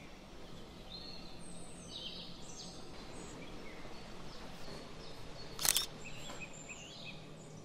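Faint small-bird chirps over a low steady hum, with one sharp camera-shutter click about three-quarters of the way through.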